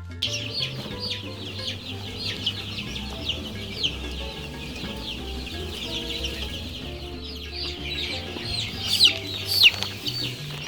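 A flock of four-week-old chicks peeping continuously, many short high falling calls overlapping, with a couple of louder peeps near the end.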